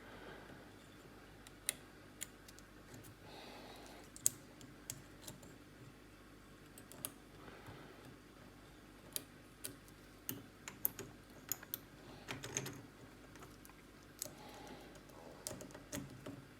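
Lock pick and tension wrench working the pin stacks inside a Master Lock 410 lockout padlock: faint, irregular small clicks as the hook lifts pins and they set.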